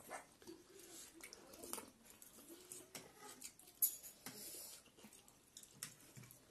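Quiet eating sounds: noodles slurped and chewed, with forks and spoons clicking against bowls, one sharp click just before four seconds in.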